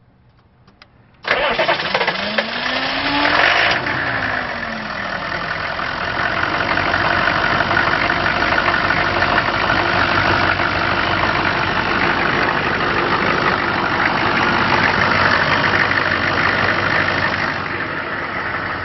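GM 6.5 turbo diesel truck engine cranking and catching about a second in, revving up and back down briefly, then running steadily, a restart after an unexplained stall that a new pump-mounted driver (PMD) has not cured.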